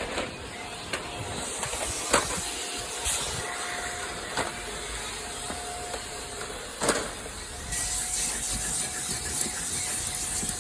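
Vacuum cleaner running as a car's interior is hoovered: a steady motor whine under a hiss of air that grows louder about 8 s in. A few sharp knocks, the loudest about 2 s and 7 s in.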